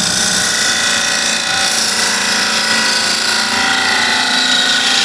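Bowl gouge cutting the inside of a wooden bowl spinning on a lathe: a steady hiss of wood being shaved.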